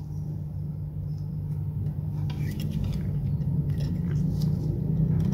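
A low steady hum that grows slowly louder, with light clicks and rubbing from gloved hands handling a modem circuit board and a metal pick.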